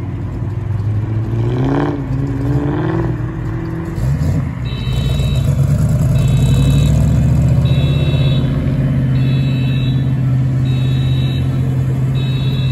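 A car engine revs briefly, then runs with a steady low rumble as the car drives out. From about five seconds in, a high electronic beep repeats about every one and a half seconds.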